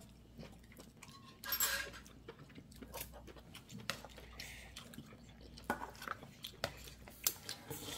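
Metal spoon and chopsticks scraping and clinking against a bowl as bibimbap rice is mixed, with a few scattered light clicks and a short rustling scrape about a second and a half in.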